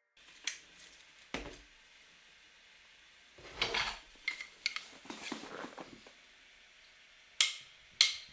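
Scattered light clicks, clinks and knocks of small hard objects, a dozen or so spread unevenly over several seconds, with a small busy cluster in the middle.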